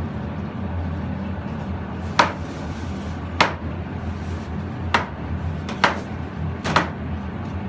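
Large kitchen knife chopping raw chicken pieces on a plastic cutting board: five sharp knocks about a second apart, over a steady low hum.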